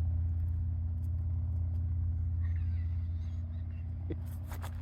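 Steady low engine drone, like a vehicle idling, holding an even pitch, with a few faint clicks near the end.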